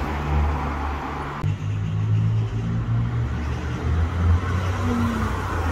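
Deep exhaust drone of a turbocharged Toyota Corolla E11 through a 3-inch stainless exhaust with Simons Turbonett mufflers, moving slowly in street traffic at low revs. The drone holds steady, and its higher hiss drops away about a second and a half in.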